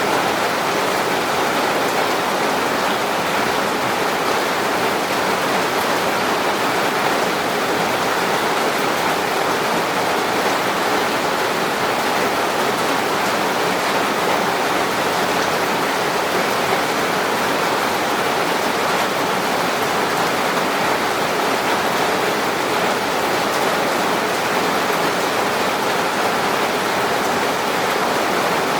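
Steady rain falling, a dense even hiss that holds constant without let-up.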